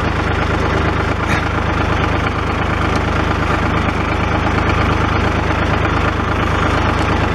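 A 1981 tractor's engine idling steadily.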